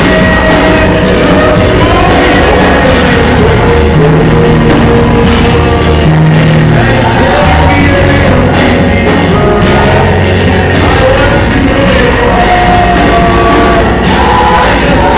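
Loud live worship music amplified through a hall PA: a man singing lead into a handheld microphone over a musical accompaniment.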